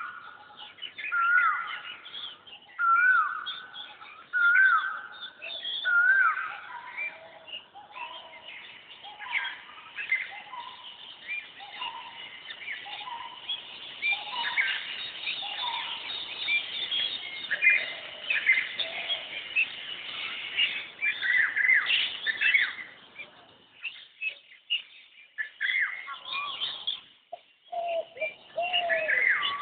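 Asian koel calling a repeated upward-curving note about every second and a half, then a busy chorus of other birds chirping.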